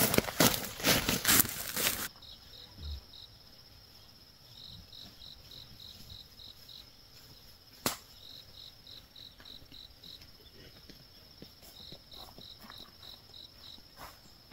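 Insects chirping in a quick, even pulse of about five chirps a second, in runs separated by short gaps, over a continuous high thin buzz. A loud noisy rustle fills the first two seconds and cuts off abruptly, and there is a single sharp click about eight seconds in.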